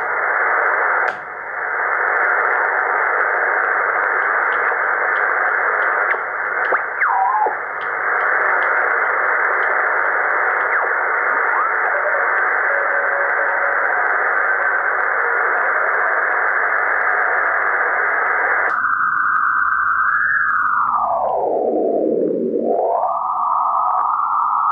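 Shortwave static and hiss from a Drake R77 HF receiver's speaker as it is tuned across the bands, with a click about a second in and faint whistles in the noise. After a second click near the end, the hiss narrows to a thinner band that slides down in pitch and back up as a control is turned.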